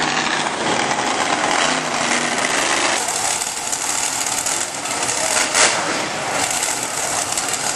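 Loud, rattling engine noise from racing vehicles on a drag strip, distorted on the camera microphone. The sound changes abruptly about three seconds in.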